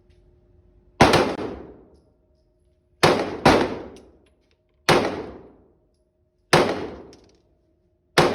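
Glock 26 9mm pistol fired six times at an uneven pace, with two shots in quick succession about three seconds in. Each shot has a ringing echo that dies away over about a second.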